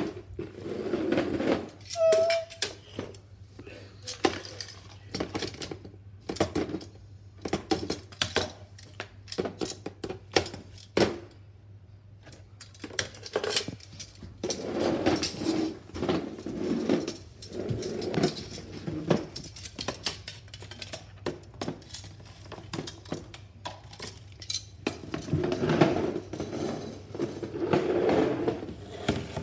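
Metal kitchen tongs clicking and clinking against a plastic tub and the rubbish in it, many sharp, irregular clicks, with rustling of paper scraps now and then.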